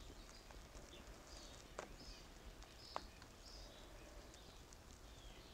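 Near silence outdoors, with faint scattered bird chirps and two sharp crackles from the fire burning in the metal fire pit, about two and three seconds in.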